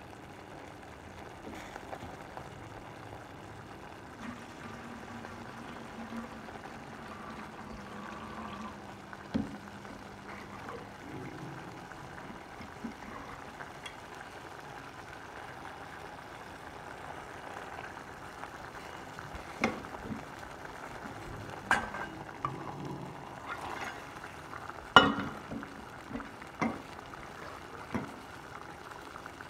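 Drumstick pieces in a tomato and mustard-seed gravy simmering in a pan, a steady bubbling sizzle, with a few sharp clinks of the metal ladle against the pan, most of them in the second half.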